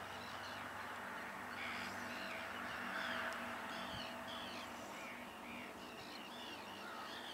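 Birds calling in quick series of short, arched cries, starting about two seconds in and continuing, over a steady background hiss.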